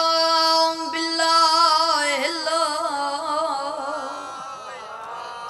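A boy's voice singing a devotional recitation into a microphone, with no accompaniment: one long held note, then from about a second in a wavering, ornamented phrase with vibrato that slowly fades near the end.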